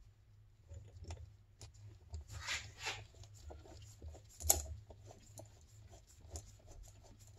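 Small metallic clicks and scrapes of a flywheel puller being handled against the flywheel while its bolts are threaded in by hand, with a sharper metal click about four and a half seconds in.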